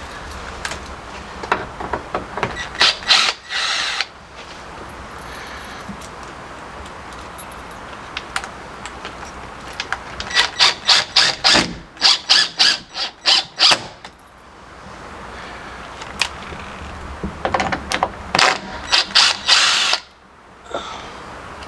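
Door-hinge screws being backed out of and driven into a door jamb, heard as three bursts of rapid clicking, a few seconds each, with pauses between.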